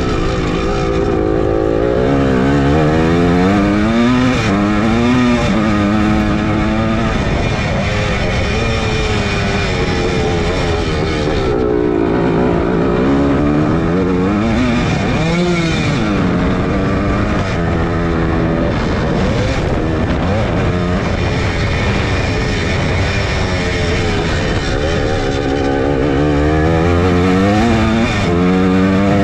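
1981 Suzuki PE250's single-cylinder two-stroke engine running hard under a rider, its pitch climbing as it accelerates and dropping back again, several times over.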